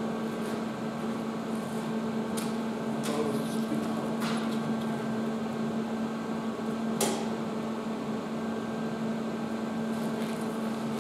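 Welding machine humming steadily at idle just after the arc has stopped, with a few light clicks and knocks scattered through.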